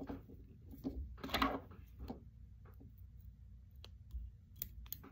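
Faint scattered clicks and brief rustles of fingers working tying thread around a jig head in a fly-tying vise during a hand whip finish.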